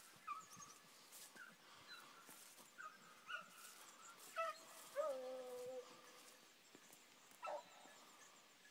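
A beagle pack giving tongue on a hare's trail, faint. Scattered short yelps and bays, then one longer drawn-out bay about five seconds in and another short cry near the end.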